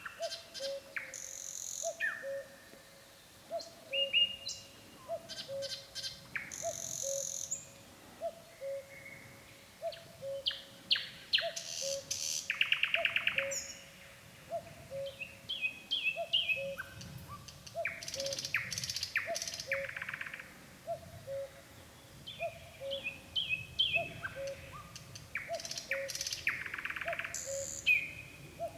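Nightingale singing a run of varied phrases: clear whistles, sharp clicks and fast rattling trills, separated by short pauses. Under the song a faint low two-note call repeats steadily, a little faster than once a second.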